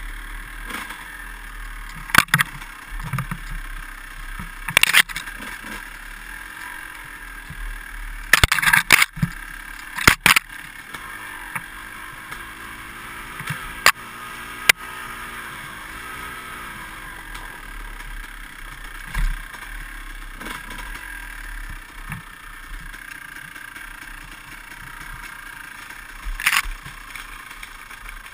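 Dirt bike engine running on a rough dirt trail, its pitch rising and falling with the throttle, with sharp knocks and clatters from the bike over bumps several times.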